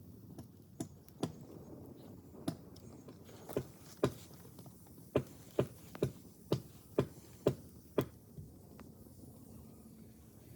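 A series of about a dozen sharp knocks. They are spaced out at first, then come more quickly, about two a second, from about five to eight seconds in.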